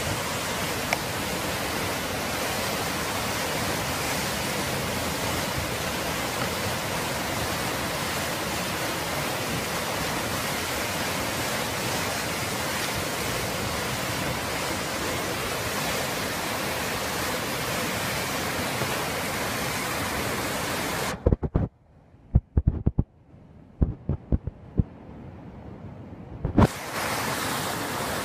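Muddy flash-flood water rushing across a field, a steady rushing noise. About three-quarters of the way through the sound drops out for several seconds, broken by a few sharp knocks, then the rush returns.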